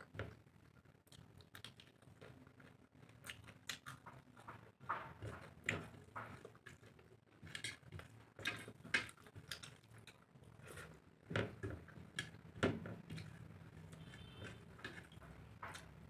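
Eating rice and curry by hand: fingers mixing and squishing rice on a plate, with chewing and lip smacks, heard as a string of short, irregular clicks and wet smacks.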